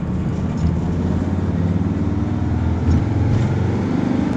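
Car engine running steadily with road noise, heard from inside the cabin while driving.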